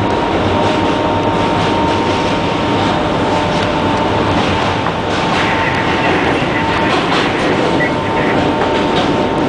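Kawasaki R160B subway car running at speed, heard from inside the car: a steady rumble and rattle of wheels on rail, with a thin, steady high tone running through it.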